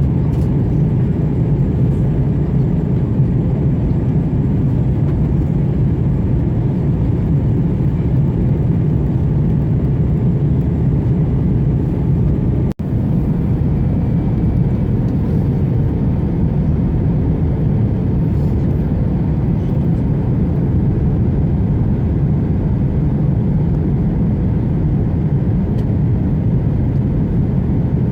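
Steady low rumble of an Airbus A321's engines and cabin noise, heard from inside the passenger cabin, with a momentary dropout about thirteen seconds in.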